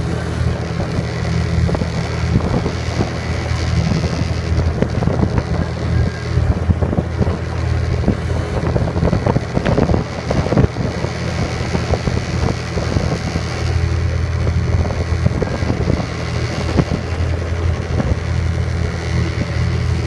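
Outboard motor of a following launch running steadily at an even speed, with wind buffeting the microphone and water rushing past the hull.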